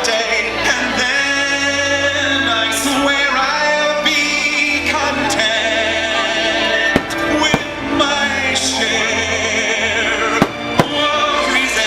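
Fireworks-show music with singing, over which a few sharp firework bangs go off, two close together about seven seconds in and two more near the end.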